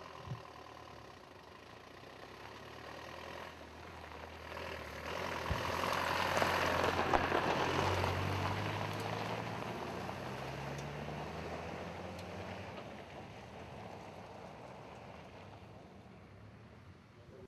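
Turbo-diesel off-road vehicle driving past: the engine and tyre noise build to a peak about six to eight seconds in as it passes close, then fade as it drives away. The engine note rises a little as it pulls off.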